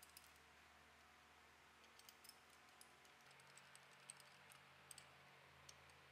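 Faint, irregular light metal clicks and ticks from a long steel bar worked against the crankshaft and connecting rods of an LS engine short block, over a low steady shop hum.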